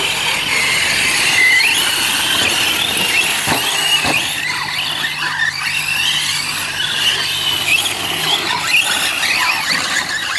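Several large-scale radio-controlled off-road trucks running on a dirt track. Their motors and gears give a high, overlapping whine that rises and falls in pitch as the cars speed up and slow down. Two short knocks come at about three and a half and four seconds in.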